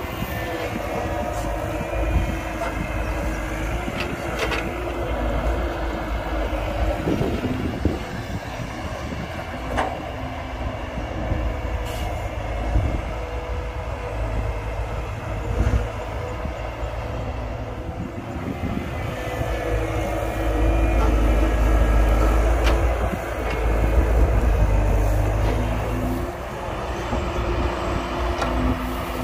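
Excavator diesel engine running steadily, working louder twice in the second half, with a few sharp knocks scattered through.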